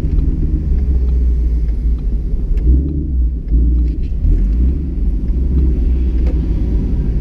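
2015 Mustang GT's 5.0-litre V8 running at low revs as the car rolls slowly, heard from inside the cabin as a steady low rumble.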